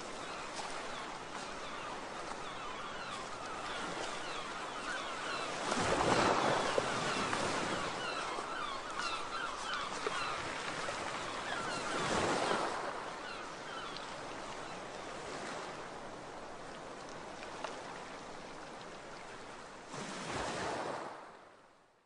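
Sea waves washing on a shore, a steady rush of surf that swells louder about 6 and 12 seconds in and again near the end, then fades out suddenly at the very end.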